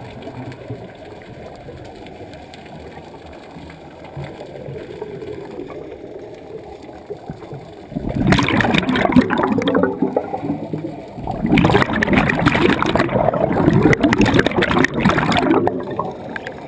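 Scuba diver's exhaled bubbles rushing and gurgling from a regulator close to the microphone, heard underwater. There are two loud bursts, the first about halfway through and the second soon after and longer; before them only a low murmur of water.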